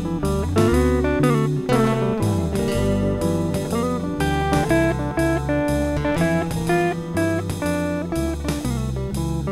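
Live band playing an instrumental break in a honky-tonk blues song: guitar over bass and a steady drum beat, with no singing.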